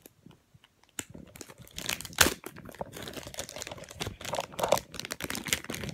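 Plastic crinkling and small irregular clicks as a thin plastic phone case is handled close to the microphone, starting about a second in, with one sharper click a little after two seconds.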